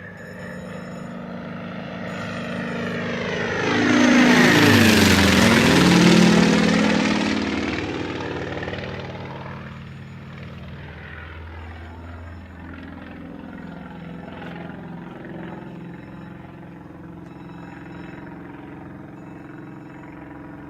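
An aircraft flies low past. Its engine sound swells to a peak about four to seven seconds in, and its pitch drops sharply as it goes by. It then fades to a steady, lower drone.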